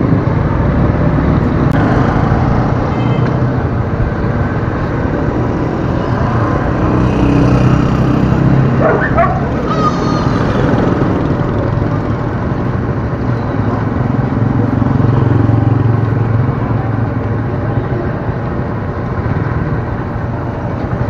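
Motorcycle engine idling steadily under street traffic noise, with a short wavering high cry about nine seconds in.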